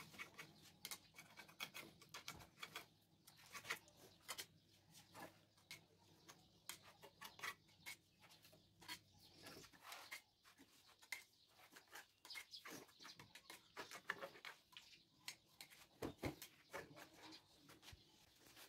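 Faint scraping and clicking of a metal spatula scooping glue from a tin and spreading it onto the wooden rails of a sofa frame, in many short irregular strokes.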